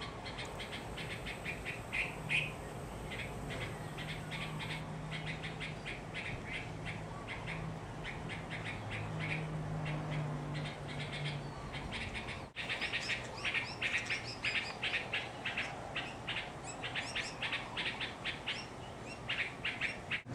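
Young red-vented bulbul calling: a long run of short, rapid chirps, growing denser and louder after a brief break about twelve seconds in.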